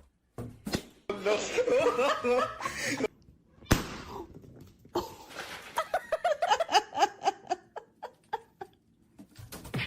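People laughing: a stretch of laughter, a sharp click about a third of the way in, then several seconds of quick, rhythmic ha-ha laughter.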